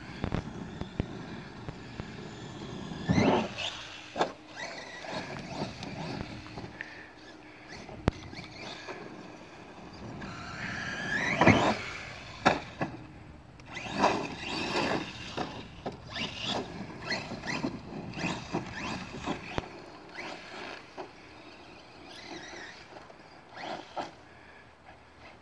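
Electric brushless motor of a DHK Zombie 8E RC monster truck whining in bursts as the throttle is worked, with tyres scrabbling on dirt and grass and several hard thumps of landings and tumbles. The loudest moment comes about eleven seconds in, a rising whine ending in a crash.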